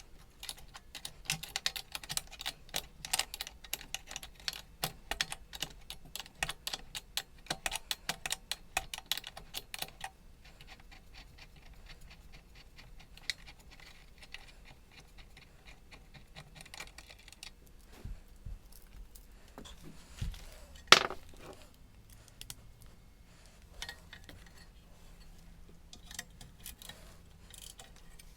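Ratchet wrench clicking in quick runs for about ten seconds as a freshly loosened 12 mm bolt is backed out, then quieter handling with one sharp clack about twenty seconds in.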